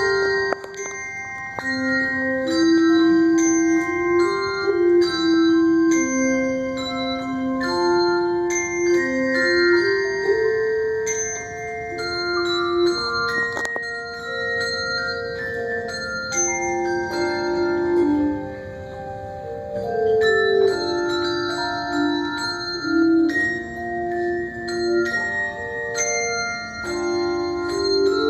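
Handbell choir playing a piece: a melody of ringing bell notes over chords, each note sustaining and overlapping the next.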